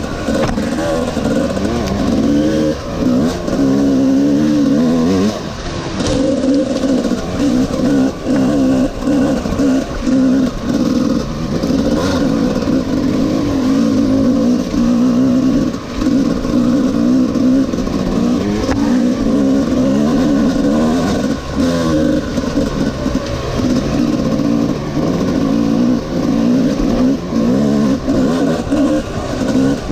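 Honda CR250R-based 250 cc two-stroke single-cylinder engine running and revving up and down as the throttle is opened and closed, its pitch rising and falling throughout.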